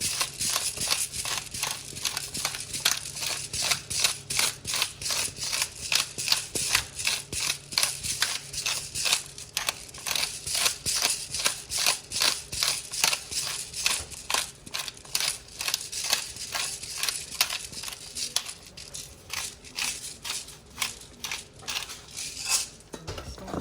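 Pepper mill grinding fresh peppercorns, a rhythmic crunching click about two to three times a second, growing fainter and sparser near the end.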